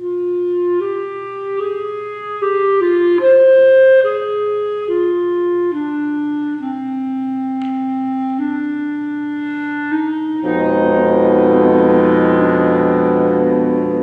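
A single woodwind plays an unaccompanied melody of held, stepwise notes after a pause. About ten and a half seconds in, the full wind ensemble of flutes, oboes, clarinets, horns and bassoons comes in with loud sustained chords.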